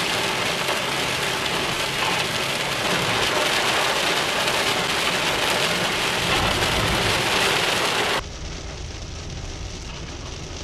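Heavy rain pelting the car's roof and windscreen, heard from inside the moving car as a loud, even hiss. A little after eight seconds it cuts off suddenly, leaving a quieter, duller car interior with a steady low engine and tyre hum.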